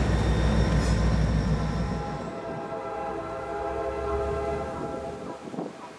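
EMD GP-series diesel locomotive passing close, a loud low throbbing engine rumble. About two seconds in it gives way to a distant approaching train's air horn, a chord of several tones held for about three seconds.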